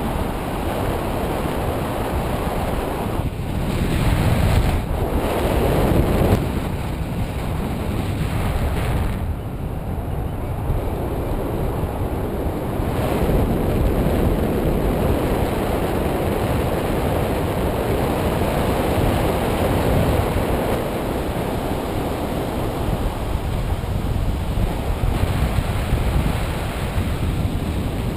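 Wind rushing over an action camera's microphone in paraglider flight: a steady noise of airflow that surges louder a few seconds in.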